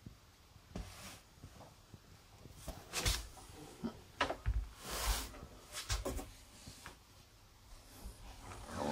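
Irregular knocks, scrapes and rustles from handling in a snake terrarium, about half a dozen, the longest and loudest a scrape about five seconds in.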